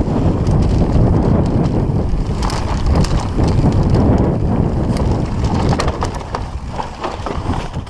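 Mountain bike riding fast down a dirt forest trail: wind buffeting the camera microphone over the steady rumble of the tyres, with frequent clicks and clacks from the bike rattling over bumps.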